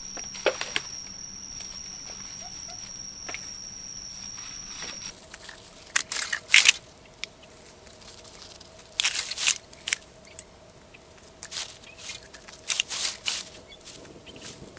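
Irregular knocks and scrapes from manual work, coming in short clusters every few seconds, over a faint steady background. A steady high tone stops about a third of the way in.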